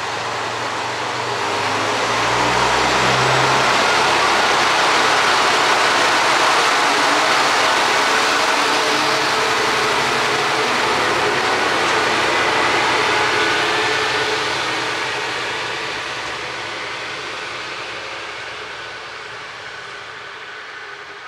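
MRT300-series diesel railcar pulling away from the platform: its engine note rises in the first few seconds, then the running noise of the car passing grows loud and fades steadily as it draws away over the last several seconds.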